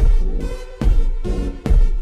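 Instrumental electronic music with a heavy, steady beat: deep bass hits and sharp drum strikes, with a sustained synth line.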